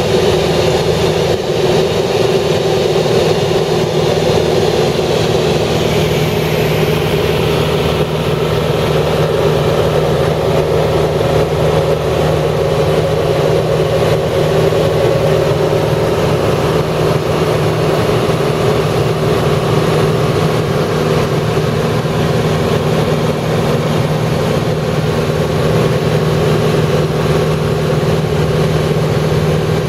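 A steady, loud mechanical hum with a constant low drone, like an engine running.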